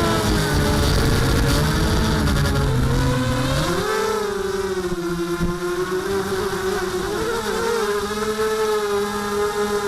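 Mini quadcopter's electric motors and propellers whining. The pitch wanders up and down with the throttle, and the low rush drops away about four seconds in.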